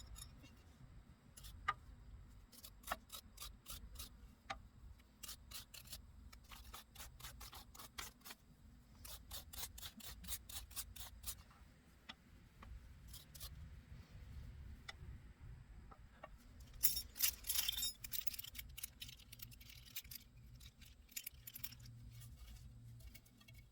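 Faint, intermittent scraping and clicking of a wire bristle brush scrubbing vinegar-loosened paint off metal drawer hardware, with a louder run of strokes about seventeen seconds in.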